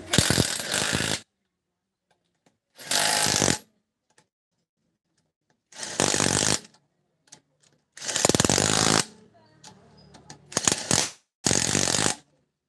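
Impact wrench working the lug nuts of a van's wheel: six short bursts of rattling, each about a second or less, with near-silent pauses between as it moves from nut to nut.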